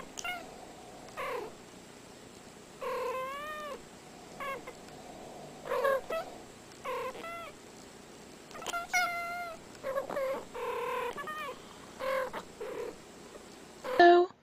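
Domestic cats giving a long string of short chirping meows, a dozen or more brief calls, some bending up and down in pitch. The loudest call comes near the end.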